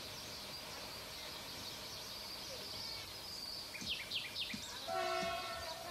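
Nightingale singing over a steady outdoor background, with a quick run of falling notes about four seconds in; about a second later a train's horn sounds in one short blast of just under a second.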